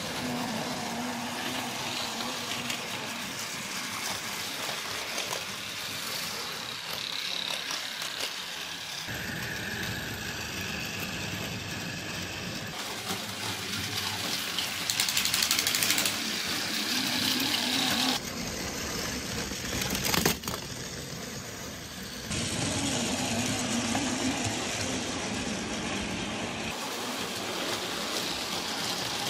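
Battery-powered Plarail toy trains running along plastic track, their small gear motors whirring steadily. The sound shifts abruptly several times.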